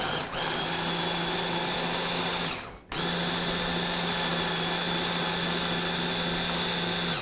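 Hand blender with a chopper attachment running at a steady pitch, grinding cooked ripe plantain into a fine dough. It stops for a moment just before three seconds in, then runs again.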